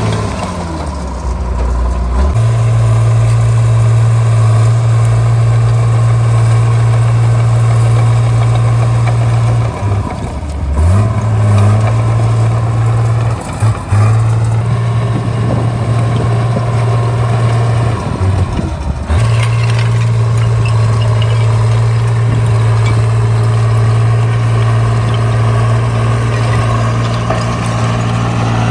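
Caterpillar D3C bulldozer's diesel engine running steadily under load. Its pitch drops briefly at the start and dips and recovers a few times around the middle.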